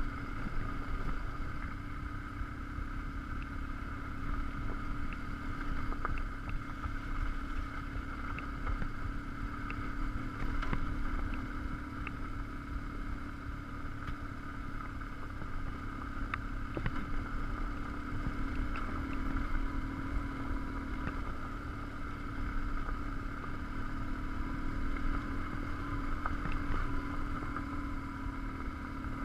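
BMW R1150GS Adventure's flat-twin engine running at a steady pace while riding a loose gravel track, with low rumble and a few sharp clicks scattered through.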